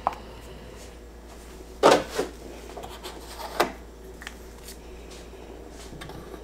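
A click as a digital kitchen scale's button is pressed, then a few knocks and rubbing sounds of a plastic gallon jug of distilled water being picked up and handled, the loudest knock about two seconds in.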